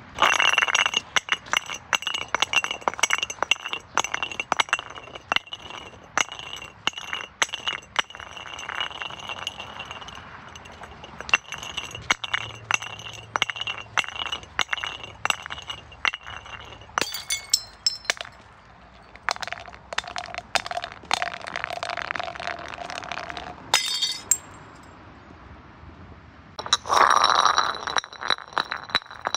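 Glass bottles clinking and knocking against each other, each knock ringing on in a high tone, with a few louder crashes of glass breaking, the loudest near the end.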